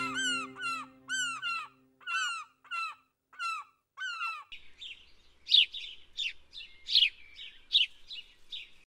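Seagulls calling, repeated arched cries about twice a second, with music fading out under the first second or so. About halfway the gull calls stop and a small songbird takes over with a run of quick, high, falling chirps.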